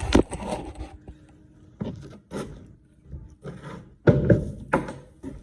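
Irregular knocks and scrapes of wood being handled, with louder clatters at the start and about four seconds in.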